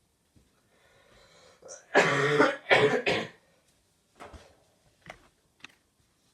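A person coughing: a faint in-breath, then two loud, harsh, throat-clearing coughs about two seconds in, followed by a few faint clicks.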